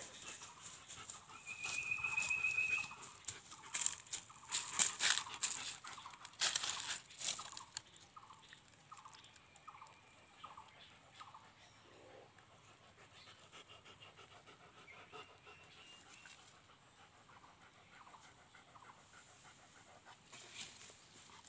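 A large shepherd-type dog panting, a quick run of about six short breaths. Before it come rustling and brushing noises and a short high trill.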